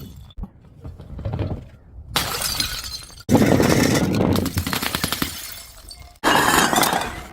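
Glass bottles smashing one after another: a small crash about half a second in, then three loud shatters, each followed by tinkling shards settling and each cut off abruptly by the next.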